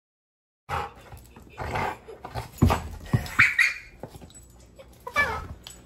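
Dog chewing and tugging a plush squeaky toy, starting about a second in: short squeaks from the squeaker and scrunching of the toy's crinkly fabric, with a few sharp knocks.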